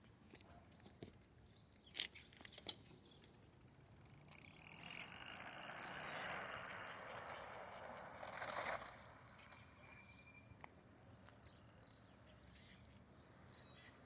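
Electric mini bike with a Grin hub-motor kit riding past: a few clicks and a quick run of ticks, then motor and tyre noise that rises, peaks about five to six seconds in and fades away by about nine seconds.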